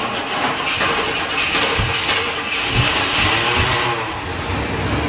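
Old Chevy truck's engine running just after being started, with its pitch rising and falling once around the middle.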